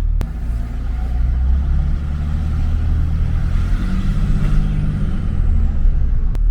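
A 5.9 Cummins straight-six turbo diesel running with an open aftermarket intake tube in place of the factory intake muffler. The engine note and a higher whine rise around the middle as it takes gas under load, the Holset turbo spooling.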